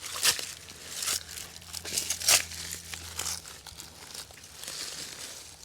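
Soil being dug and scraped while unearthing sweet potatoes: irregular crunching and rustling scrapes of dry earth, about one every second.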